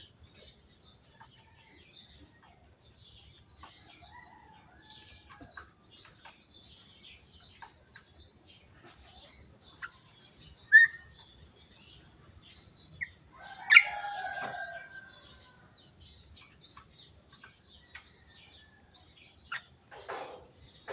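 Javan myna calling: scattered soft clicks and chirps, a short rising whistle, then about two-thirds through a louder call with a held whistled tone lasting about a second, and a harsher call near the end.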